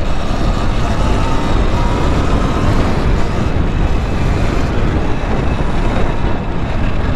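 Heavy wind rumble on the microphone from riding an electric bike, with a faint electric motor whine that rises slightly in pitch.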